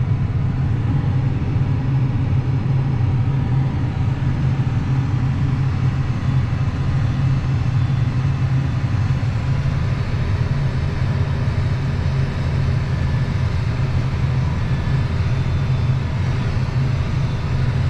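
Tractor engine running steadily under way, a constant low drone.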